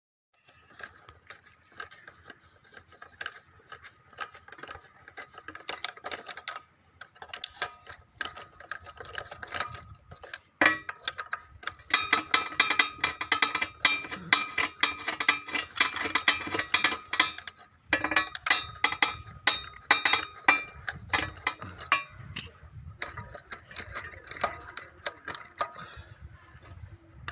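Metal hand tools and parts clinking and scraping against a petrol generator's engine as it is taken apart: a long, irregular run of small clicks and knocks, busier from about ten seconds in.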